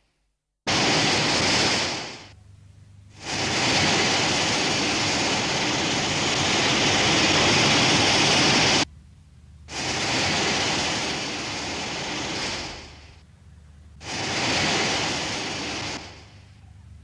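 A string of film sound effects: four separate bursts of rushing, hiss-like noise, the second and longest lasting several seconds and cutting off suddenly, the later ones fading out.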